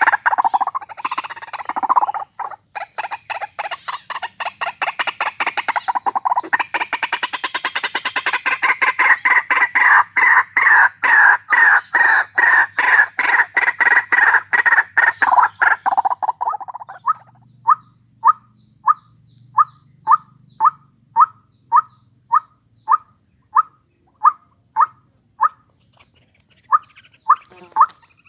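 White-breasted waterhen (ruak-ruak) calling: a long, dense run of rapidly repeated loud calls that cuts off suddenly about two thirds of the way in. It is followed by evenly spaced single sharp notes, about one and a half a second, over a steady high-pitched hiss.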